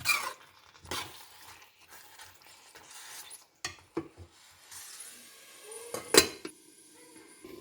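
A spoon stirring mutton pieces in onion-tomato masala in a cooking pan, knocking and clinking against the pan a few times, the loudest clink about six seconds in, over faint sizzling.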